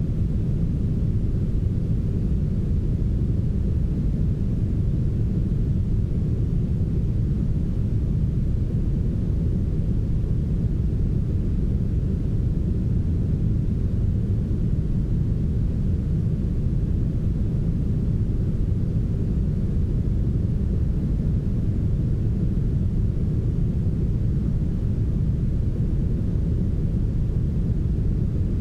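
Steady, smoothed brown noise: an even, deep rumbling hiss concentrated in the low end, with the highs rolled off, unchanging in level.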